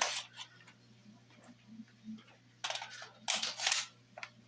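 Plastic clicks and rattles of a toy Glock 18 pistol and its magazines being handled, in two short clusters about two and a half and three and a half seconds in.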